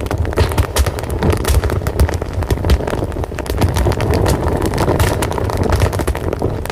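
Fire crackling steadily, with many quick pops over a low rumble.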